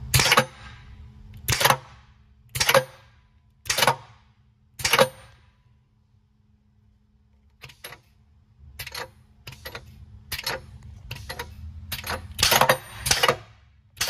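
Air-shift knob of an Eaton Fuller 18-speed transmission being switched back and forth on shop air to test the slave valve: a series of sharp clicks, each with a short hiss of air. Five loud clicks come about a second apart, then after a pause about ten quicker, softer ones, with a louder pair near the end.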